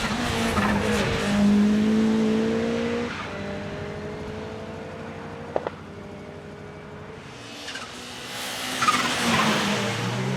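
Turbocharged 1.8-litre four-cylinder Cosworth engine of a Ford Escort RS1700T Group B rally car running hard on a hillclimb. Its note is loudest about two seconds in and again near the end, with a single sharp crack about halfway through.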